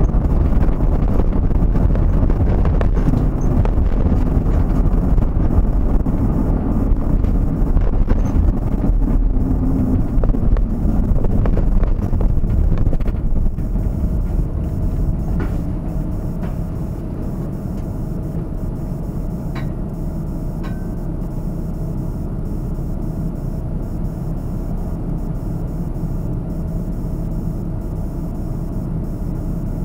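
Road and engine noise heard from inside a moving vehicle: a steady low rumble that is louder for the first half, then drops to a quieter, even level.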